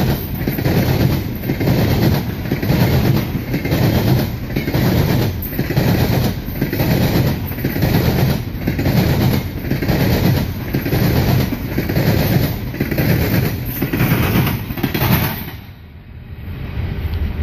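Empty CSX coal train's cars rolling past at speed, their wheels clacking in a quick, steady rhythm. About fifteen seconds in the last car goes by and the sound drops sharply, leaving a lower rumble.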